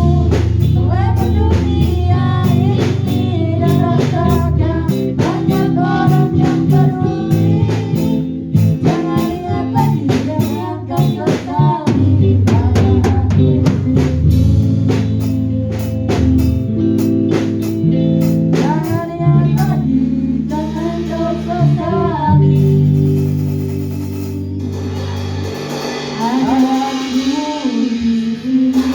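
Music: a song with a singing voice over drum kit and guitar.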